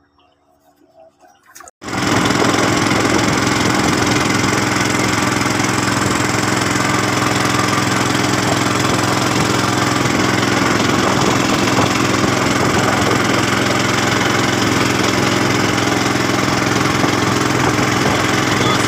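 A small river boat's engine running steadily under way, heard from on board. It cuts in abruptly about two seconds in after near quiet, and stays at one even pitch and level.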